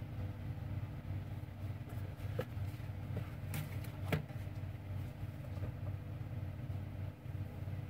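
Steady low mechanical hum of background noise, with a few faint clicks about two and a half, three and a half and four seconds in.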